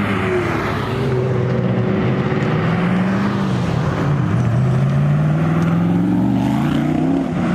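Sports car engine accelerating away: the revs climb, drop at a gear change about four seconds in, then climb again.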